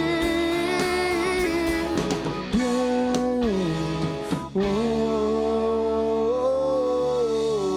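Live rock band playing: a singer holds long sung notes ("yeah") over guitar, the pitch stepping up and down a few times with a short break about four and a half seconds in.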